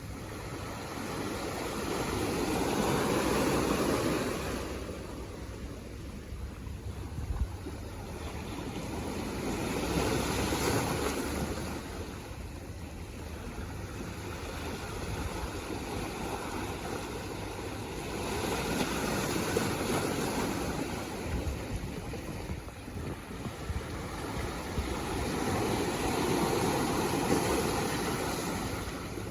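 Sea waves washing onto the shore, swelling and falling back four times, about every eight seconds, over a steady low rumble of wind on the microphone.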